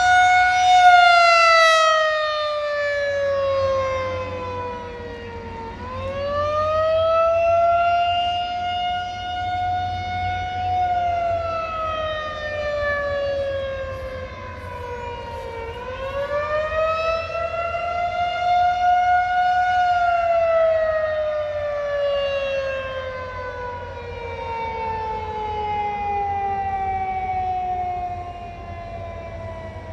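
Federal Signal 2001-SRN electromechanical tornado siren sounding its attack signal. It is a steady wail whose pitch slowly slides down, climbs and holds, then slides down again, about ten seconds per cycle. Its loudness swells and fades every few seconds as the siren head rotates.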